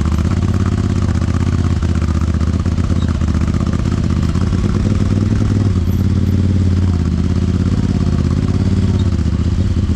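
Honda Talon side-by-side's parallel-twin engine running steadily at low revs, its pitch rising and falling gently.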